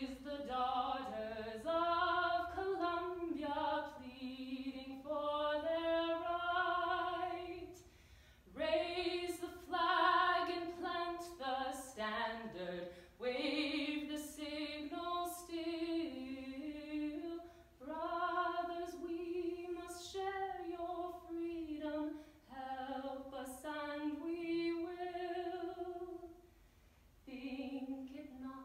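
A woman singing solo and unaccompanied, a melody of held notes in phrases broken by short pauses for breath.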